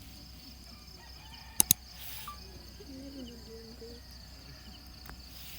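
Insects chirring steadily outdoors, a high continuous trill, with two sharp clicks in quick succession about a second and a half in and a faint distant wavering call in the middle.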